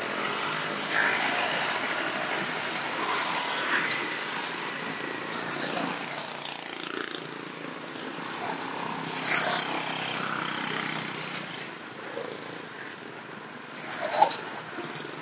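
Road traffic passing close by: motorcycle and car engines with tyre noise on the road surface. Brief louder moments stand out about nine seconds in and, loudest, near the end.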